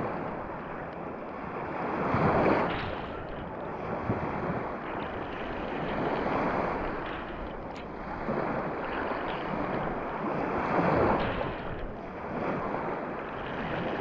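Small sea waves washing in over sand at the shoreline, heard with the microphone right at the water's edge. The wash swells and ebbs three times.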